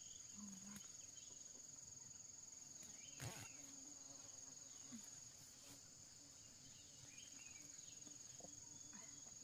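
Faint, steady high-pitched chirring of insects such as crickets, with a single short knock about three seconds in.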